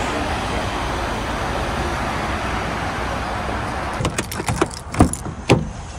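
Steady rushing background noise, then from about four seconds in a bunch of keys jangling with sharp clicks as a van's door handle is pulled.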